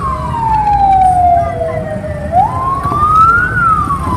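Electronic siren wailing: its tone slides slowly down, jumps back up about two seconds in, climbs and falls again, repeating about every four seconds, over a steady low rumble.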